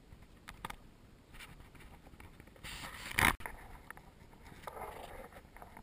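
Scattered handling knocks and scrapes on a plastic kayak, with one louder, sharp knock about three seconds in and a short rustling scrape near the end.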